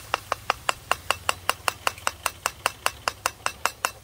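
Metal spoon stirring in a steel wok, striking the pan in quick, even clinks about five times a second.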